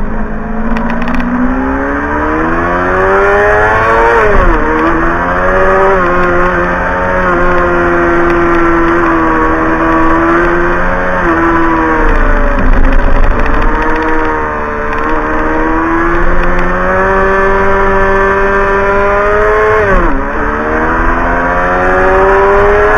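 Sport bike engine heard from an onboard camera, its revs rising and falling through a run of bends, with a few sudden drops in pitch, the sharpest about four and twenty seconds in. Wind rumbles low on the microphone underneath.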